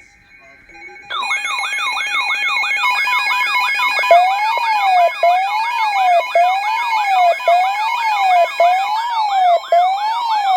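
Several electronic sirens sounding together: fast rising yelp sweeps about three times a second start about a second in, and about four seconds in a slower tone rising and falling about once a second joins them.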